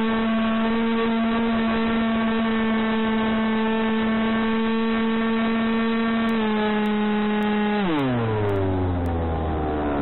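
Electric motor and propeller of an FPV flying wing (2208 2600kv brushless motor turning a 6x4 prop) heard from on board, a steady whine. It dips slightly past six seconds, then falls steeply near eight seconds as the throttle is pulled back, leaving a low hum with the noise of rushing air.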